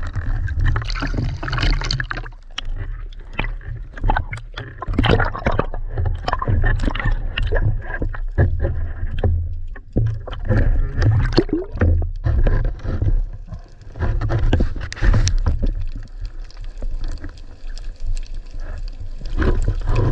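Sea water sloshing and gurgling against an action camera's housing at the surface, over a steady low rumble, with frequent irregular knocks and scrapes as the speargun and float line are handled.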